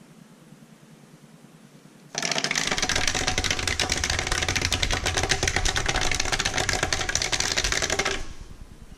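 A small homemade motorized drawing machine rattling rapidly as it runs on the paper. It starts suddenly about two seconds in and stops about eight seconds in.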